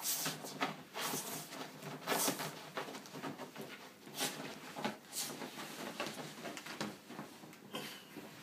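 A toy poodle scrubbing and rubbing its body along a fabric sofa cover and cushions, making irregular scuffing and rustling strokes, the loudest about once a second. The dog is trying to rub off freshly applied Frontline flea treatment after a shampoo.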